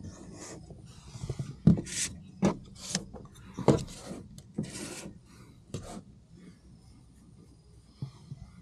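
A series of short rubbing and scraping sounds over the first six seconds, then quieter.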